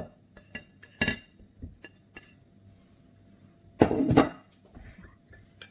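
Scattered knocks and clinks of kitchen utensils as shredded papaya goes into the mortar with the pounded chili and garlic, with one sharper knock about a second in and a louder burst of knocking about four seconds in.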